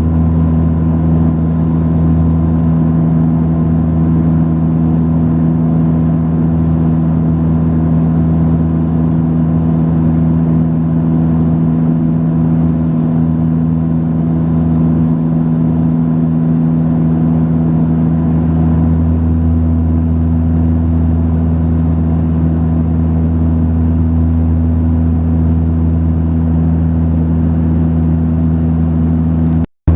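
Cabin drone of a Saab 340B's twin turboprop engines and propellers: a steady low hum made of several even tones that holds unchanged, broken only by a momentary gap near the end.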